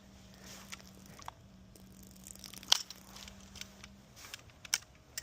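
Scattered light clicks and rustling from handling a pressure-washer spray gun and its nozzle, the sharpest click a little under three seconds in and another near the end.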